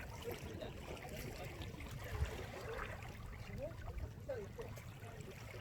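Faint distant voices over a steady low rumble, with one brief thump about two seconds in.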